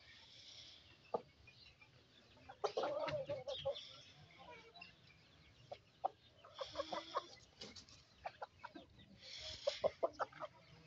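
Chickens, an Aseel rooster and a hen, clucking in short scattered bursts, with brief clicks in between.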